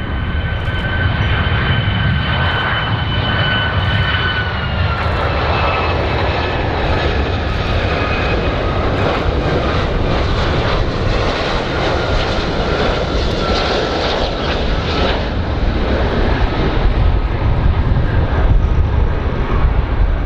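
Large airplane's engines running loud, a steady roar with a high whine that drops a little in pitch about four seconds in, over a deep rumble.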